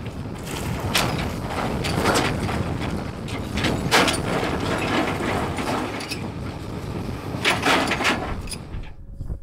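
Excavator bucket's steel teeth scraping and grinding through blasted rock, with rock clattering over the machine's low engine rumble. There are several louder scrapes, the loudest about four seconds in, and the sound eases off near the end.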